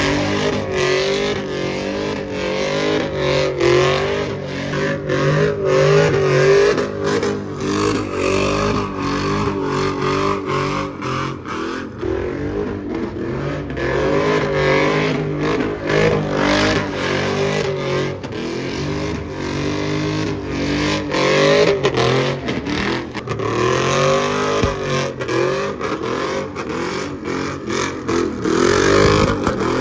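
Chevrolet Silverado pickup drifting in circles, its engine revving hard, the pitch swinging up and down again and again, while the rear tyres spin and squeal in a cloud of smoke.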